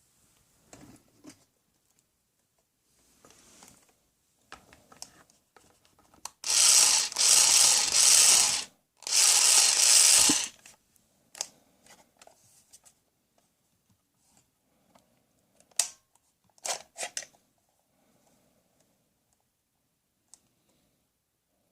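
Plastic toy mechanism ratcheting in two loud rasping runs, with scattered clicks and handling knocks before and after.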